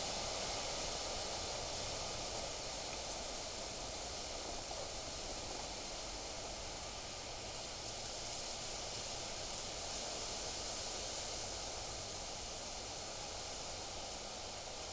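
Steady wind blowing through the trees and vegetation around a pond, a continuous rustling hiss, with one brief sharp high sound about three seconds in.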